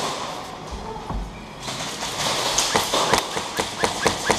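Airsoft guns firing a string of sharp cracks, several a second, through the second half.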